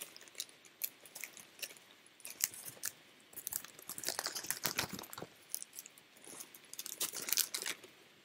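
Plastic packaging crinkling and crackling in the hands as a McDonald's toy is unwrapped, with irregular sharp crackles and clicks that come in several busy spells.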